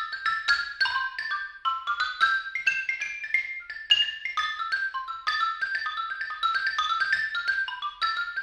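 Solo xylophone played with two mallets: a ragtime tune in fast runs of short, bright struck notes.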